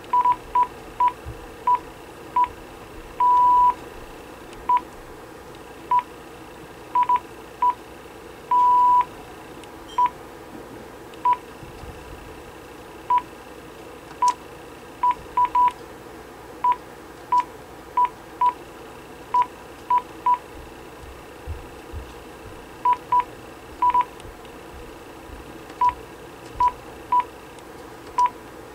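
Key tones of a Panasonic KX-TG9471 cordless phone base: short beeps at one pitch, one for each button press, coming at irregular intervals as the menu keys are pressed. Two of the beeps, about three and nine seconds in, are longer.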